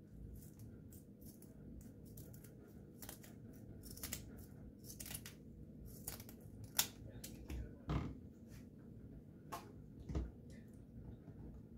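Kitchen scissors snipping through a crappie fillet: an irregular run of short snips and clicks, a few louder ones in the second half.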